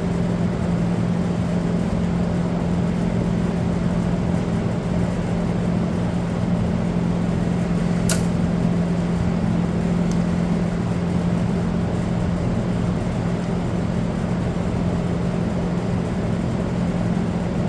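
Steady machine hum that does not change, with one sharp click about halfway through.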